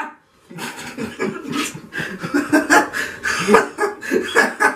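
A man laughing in short, broken bursts, starting about half a second in.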